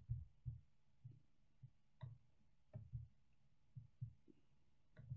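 Faint, irregular soft thumps and clicks of computer keys and a mouse being worked, about a dozen in all.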